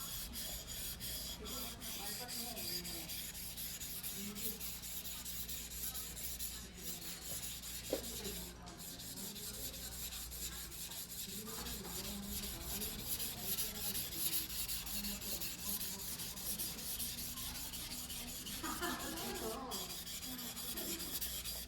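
A Choyo white #2 steel yanagiba blade being rubbed back and forth on a whetstone by hand, a continuous gritty scraping made of many quick strokes, over a steady low hum.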